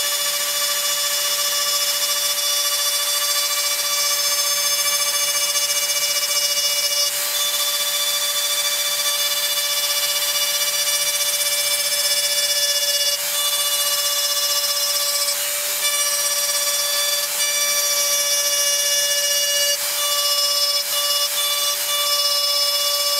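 Handheld rotary carving tool running with a steady, high-pitched whine as its small cutter bit carves rows of scalloped grooves into wood. The pitch holds constant, with a few brief breaks as the bit lifts from and meets the wood.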